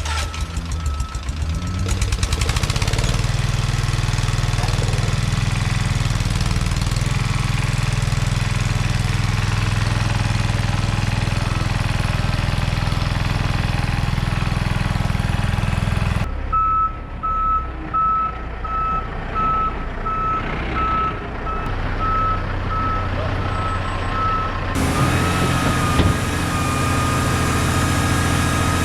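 Bobcat skid steer engine running steadily just after starting up. About halfway through, a backup alarm beeps at a steady rate for several seconds as the machine reverses, then the engine comes back up.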